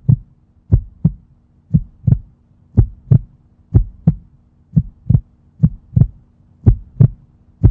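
Heartbeat sound effect: paired low thumps, a lub-dub about once a second, over a faint steady hum.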